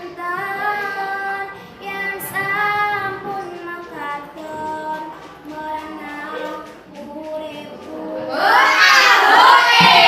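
A young girl singing slowly in a clear voice, holding long notes with gentle glides in pitch. About eight seconds in, louder overlapping voices come in.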